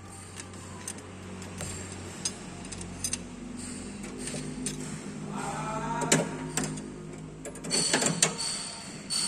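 Scattered metallic clicks and taps of hand tools loosening and turning an engine's valve-clearance adjuster at the rocker arm.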